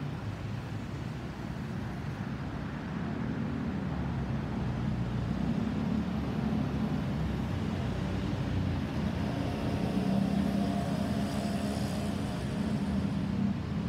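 Boeing 777-300ER's GE90-115B jet engines rumbling in a flyover, the low rumble growing gradually louder a few seconds in and strongest near the end.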